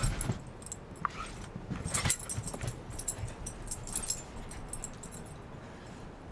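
A greyhound moving about in snow: scattered light clicks and jingles, with a low rumble of wind on the microphone.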